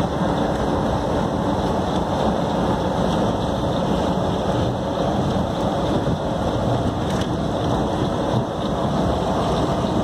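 Steady rumble and rolling noise heard from inside a moving Skylink automated people-mover train car, with no distinct events.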